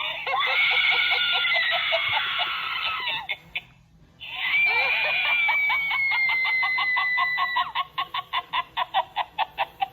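Chucky Sidestepper animatronic doll's small built-in speaker playing a tinny, rapidly pulsing sound clip. It comes in two stretches with a short gap about four seconds in, and the second stretch breaks into a string of quick, separate pulses near the end.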